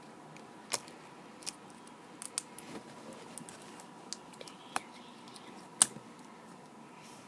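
Scattered small clicks, ticks and crinkles of fingers handling a plastic slime jar, pressing and peeling back its foil seal and poking into the slime. A few sharper ticks stand out, the loudest a little before the end.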